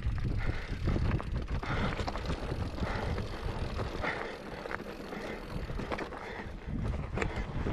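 Mountain bike rolling down a rocky, stony trail: tyres crunching over loose stones and the bike rattling and clicking over the bumps, with wind noise on the microphone.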